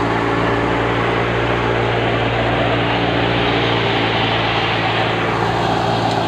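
Tractor-driven wheat thresher running steadily under load: a constant low engine drone from the Belarus tractor powering it, with a dense rushing noise from the threshing drum as wheat straw is fed in.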